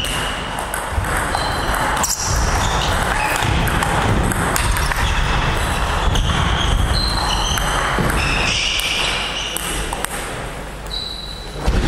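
Table tennis ball being played in a rally: sharp clicks as it strikes the bats and the table, with a short pause as a point ends and the ball is fetched.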